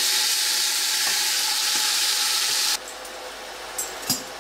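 Strips of squid sizzling in hot olive oil in a stainless steel pot, a loud steady hiss that cuts off suddenly about three seconds in. A couple of light clicks follow near the end.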